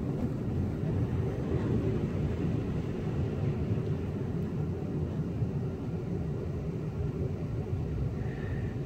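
A car driving on a wet street, heard from inside the cabin: a steady low rumble of tyres and engine.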